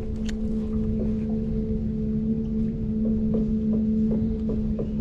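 Small electric motor on the boat humming steadily at one pitch, with wind rumbling on the microphone. From about three seconds in, a run of light ticks comes a few times a second.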